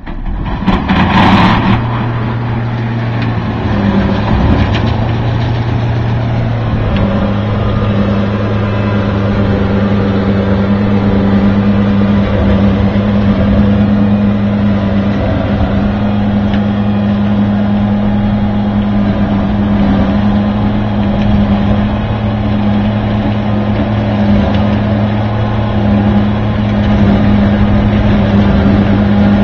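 Valtra tractor's engine running steadily under load, driving a peat-field stump-milling rotor that grinds through stumps, roots and peat. There is a loud grinding burst about a second in, then a steady engine hum under the grinding noise.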